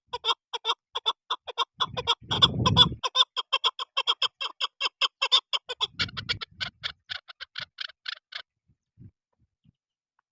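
Chukar partridge calling a fast, even run of short clucking chuk notes, about seven a second, that stops about eight seconds in, leaving a few faint notes. A loud low rumble rises under the calls about two seconds in.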